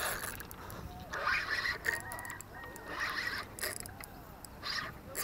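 Fishing reel being wound in four short bursts.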